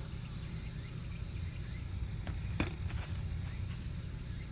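Insects trilling steadily in one high, even tone over a low background rumble, with a few light clicks a little past the middle.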